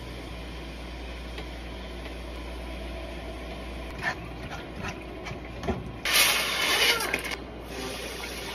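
Ground meat cooking in a nonstick skillet with a faint steady hiss, then a spatula clicking and scraping against the pan. About six seconds in, water pours into a metal saucepan with a loud rushing splash that tails off.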